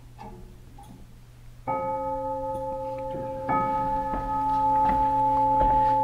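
Chime tubes of a Herschede tubular chime clock struck twice, about two seconds apart, each stroke ringing on with a long, bell-like sustain, after a little handling noise.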